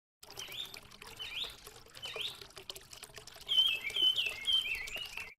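A songbird singing: short rising chirps about once a second, then a quicker, louder run of whistled notes near the end.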